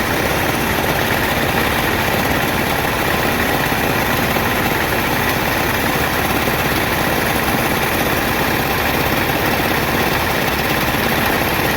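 A machine motor running steadily, an even mechanical drone with a faint steady whine over it.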